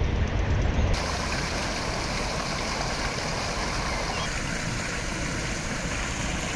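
Water running steadily over the rim of a stone fountain basin and down into the channel beside it. A muffled underwater rumble comes first and cuts off suddenly about a second in.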